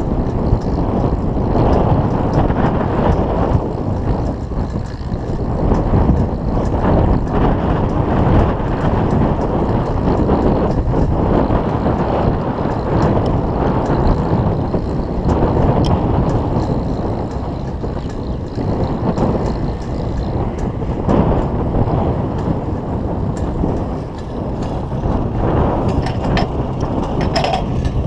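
Case 730 tractor running, heard under heavy wind buffeting on the microphone, with scattered knocks from the plow.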